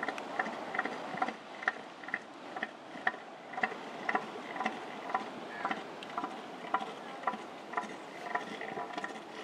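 Male northern elephant seal giving its pulsed threat call, a regular train of clacking pulses at about two a second. It is the call that bull elephant seals use to threaten other males.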